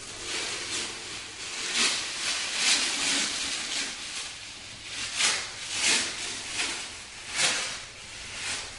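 Green FrogTape painter's tape being peeled up off a plywood subfloor, a hissing rip that comes in repeated surges as each length pulls away.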